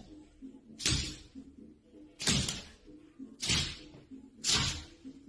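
A puppy barking in short, sharp barks, about five of them roughly a second apart, two coming close together midway.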